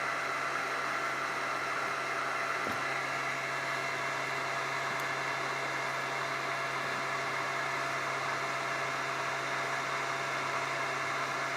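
Steady, even hiss with a low electrical hum and a few faint high whining tones, unchanging throughout.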